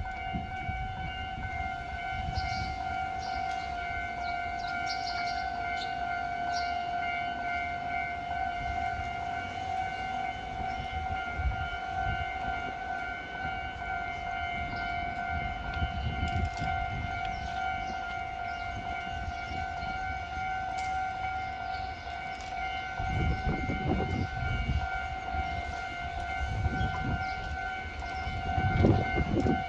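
Japanese level-crossing warning bell ringing steadily, a clear high-pitched tone. A low train rumble swells in the last several seconds.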